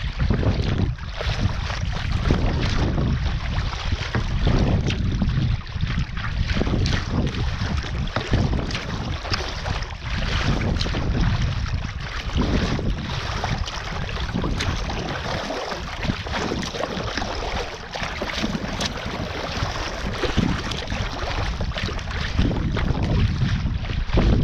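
Wind buffeting the microphone with a low, gusting rumble, over choppy sea water slapping and splashing against a sea kayak's hull as it is paddled along.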